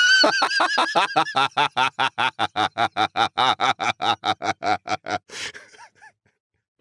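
A person laughing hard: a long fit of rapid, rhythmic laughs, about five or six a second, starting high-pitched and squealing, then trailing off over about five seconds.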